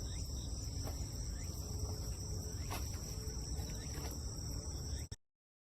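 Insects chirring steadily at a high pitch over a low rumble, with a few faint clicks; everything cuts off abruptly near the end.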